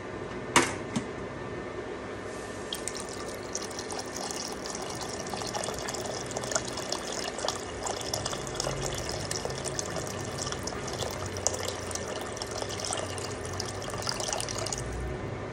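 A sharp click about half a second in, then water pouring in a steady stream into a large enameled cast-iron pot already holding broth and pork, splashing as it lands, until the pour stops near the end.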